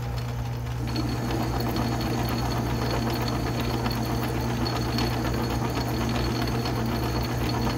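Atlas metal lathe running in back gear while a parting blade cuts into 4140 steel: a steady low hum with a faint high whine and a busy crackle of cutting that picks up about a second in. The cut runs smoothly without chatter, the headstock's babbitt bearings having just been re-shimmed to take out the slop.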